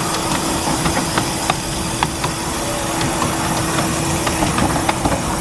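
Miniature steam railway train running: a steady hiss and rumble, with irregular short clicks every second or so.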